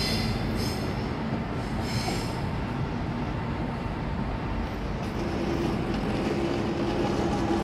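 Saemaeul-ho passenger train's wheels squealing against the rails as it rounds a curve, over a steady low rumble of the wheels on the track. The squeal flares up at the start and again about two seconds in, then dies away while the rumble carries on.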